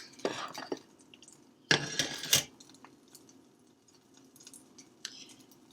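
Almond milk being poured into a bowl of pancake batter, in two short pours, the second opening and closing with a sharp knock.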